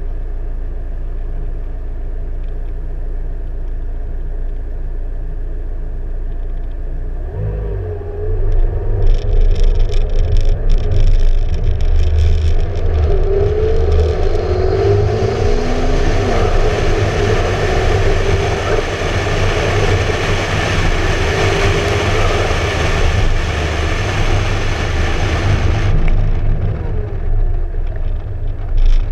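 McLaren MP4-12C Spider's twin-turbo V8 idling, then accelerating away about seven seconds in, its note rising through the gears. Loud wind rush on the microphone builds as speed climbs, then falls away a few seconds before the end as the car slows.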